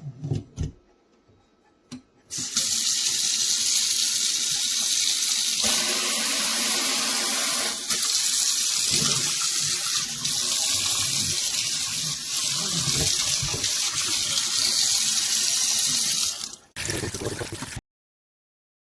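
A few short clicks, then water running from a SOEBIZ pull-down kitchen faucet into the sink as a steady loud rush. The flow begins about two seconds in, and its sound changes a few seconds later. Near the end it breaks briefly, then stops abruptly.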